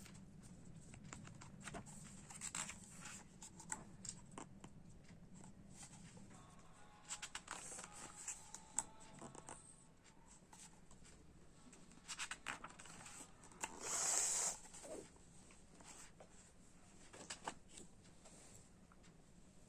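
Packaging being handled and unwrapped by hand: scattered rustles and light clicks, with a short tearing sound about fourteen seconds in, the loudest moment.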